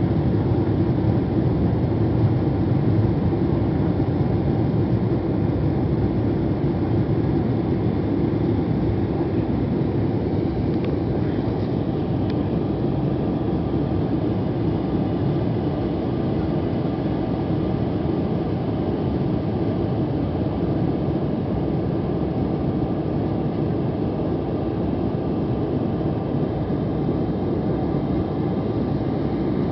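Steady cabin drone inside an Embraer E195 climbing after takeoff: its GE CF34 turbofan engines and the rushing airflow, heard from a window seat over the wing.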